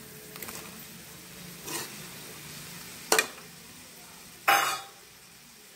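Onion-tomato masala sizzling faintly in a kadai as fried elephant foot yam cubes are added and stirred in with a perforated metal skimmer, with a sharp metal clack about three seconds in and a louder, longer scrape near the end.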